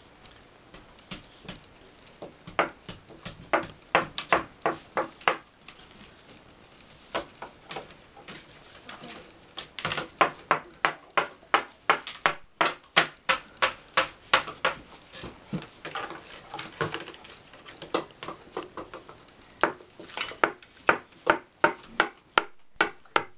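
Repeated sharp taps of small plastic cups and containers being stamped onto paper on a table, coming in runs of about three taps a second with short pauses between.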